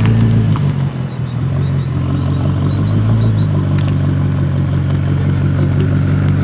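BMW M5 F90's twin-turbo V8 with a decatted Akrapovic Evolution exhaust, running with a steady, low engine note that shifts a little partway through.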